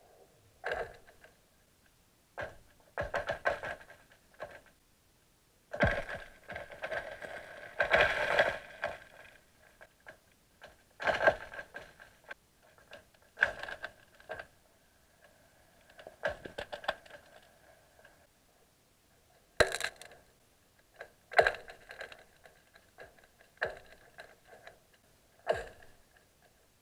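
Newly forming first ice on a lake cracking as it sets at freeze-up, heard underwater: a series of sharp cracks, each with a short ringing tail. They come irregularly every one to three seconds, some in quick clusters.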